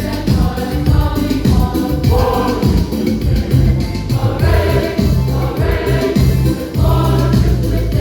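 A choir of youth and Sunday School singers singing a Christmas medley over musical accompaniment with a steady beat and bass line.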